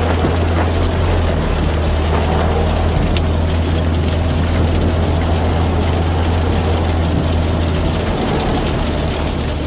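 A car driving in the rain: a steady low engine and road drone under an even hiss of rain.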